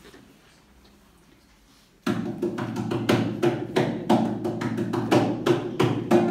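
A concert harp duo starts a cueca about two seconds in, after a quiet pause. It opens with a quick run of sharp percussive knocks over low ringing bass notes.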